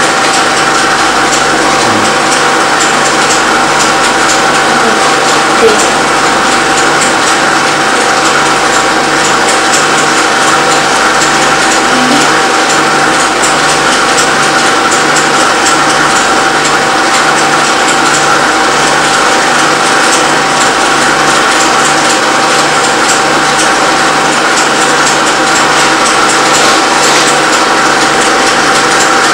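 Home-movie film projector running: a steady mechanical whir with a constant high hum and an even low pulse, and one short click about six seconds in.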